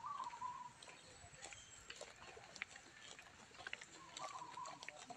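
Faint outdoor ambience with two short wavering animal calls, one at the start and one about four seconds in, and scattered small clicks.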